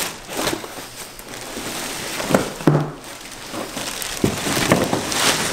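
Clear plastic bag wrapped around a stroller crinkling and rustling as it is handled and lifted out of a cardboard box, irregular, with a few louder crackles about halfway through.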